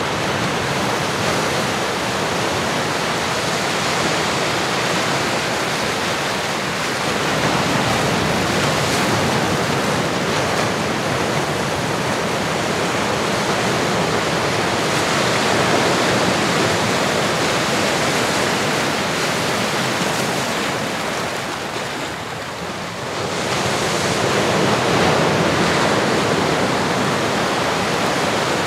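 Recorded ocean waves: a steady rushing wash of surf that swells and ebbs slowly, easing off briefly about two-thirds of the way through before rising again.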